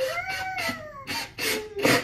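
A toddler's long vocal sound, rising then falling in pitch through the first second, over repeated short rasping bursts from a cordless drill-driver screwing the chair together. The loudest burst comes near the end.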